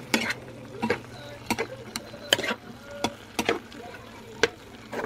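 A cooking utensil stirring vegetables and shrimp in a frying pan, clinking and scraping against the pan in short, irregular strokes, with some frying in the background.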